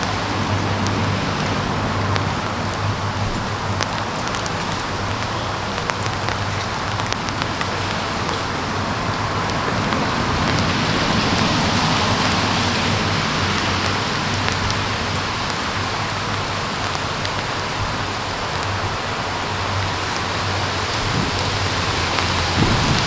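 Steady rain falling, with scattered small drop clicks close by and a low steady hum beneath.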